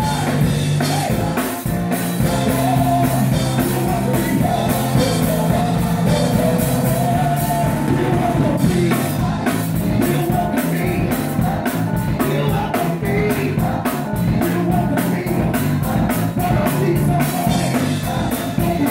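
A choir singing a song with a band accompaniment of drums and a steady bass line.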